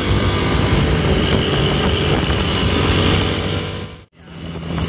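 Intercity coach bus engine running close by, with a shrill high whistle over the engine and road noise. The sound cuts off abruptly about four seconds in.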